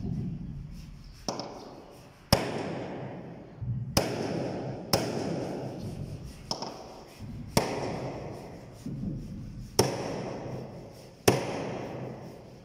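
Heavy hammer blows on a steel bar held against the planking of a wooden boat hull, about nine strokes at an uneven pace of roughly one a second, each a sharp crack that rings out briefly through the hull.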